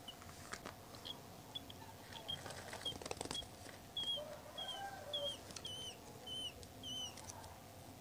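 Budgerigar chick giving short, high chirps about every half second, sparse at first and louder from about halfway through. A few handling clicks come about three seconds in.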